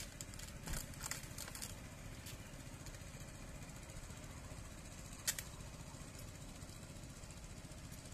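Steady low rumble in the background. Over it come a few light clicks near the start and one sharp click about five seconds in, as small items are handled on a camp table.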